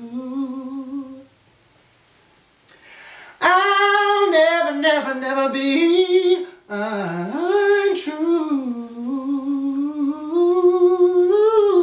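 A man's unaccompanied voice humming wordless melodic runs. A held note comes first, then a short pause, then long runs that bend up and down in pitch.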